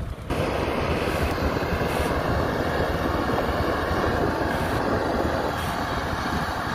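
Steady engine and road noise from a farm tractor towing a trailer of rice sacks and motorbikes travelling along the road. It starts abruptly just after the beginning.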